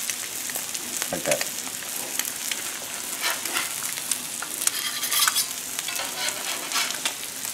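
Eggs, potato slices and onions sizzling steadily on a hot steel Blackstone flat-top griddle. A metal spatula scrapes and clicks across the griddle surface several times as fried eggs are lifted off onto a plate.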